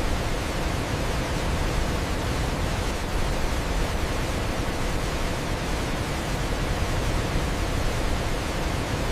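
Waterfall: falling water making a steady, even rush of noise, strongest in the low end, with no breaks or changes.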